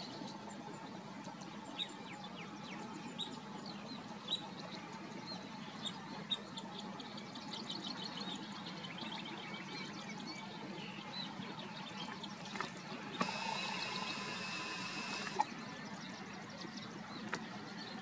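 Outdoor ambience with small birds chirping in short, high, scattered notes. A louder buzzing call lasts about two seconds, starting around thirteen seconds in.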